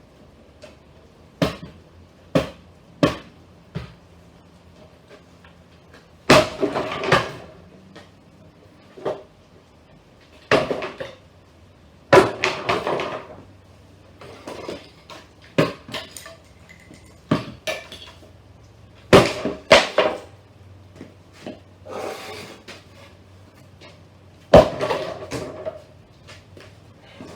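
Irregular knocks, bangs and clattering as a wooden console stereo cabinet is pried and knocked apart, about fifteen separate hits with short pauses between them, some ringing briefly.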